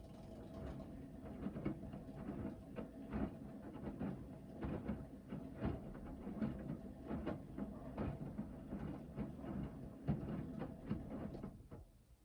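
Hoover VHD 9163 ZI washing machine drum turning during the main wash, with the laundry and water tumbling in irregular knocks and splashes over a steady motor whine. It stops shortly before the end, as the drum pauses between turns.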